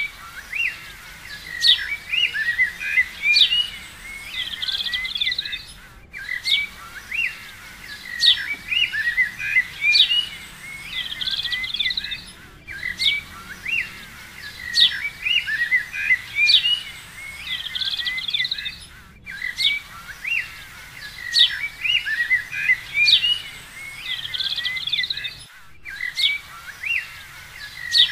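Birdsong of chirps, quick whistled sweeps and trills, a short recording of about six and a half seconds looped four times over, each pass broken off by a brief dropout.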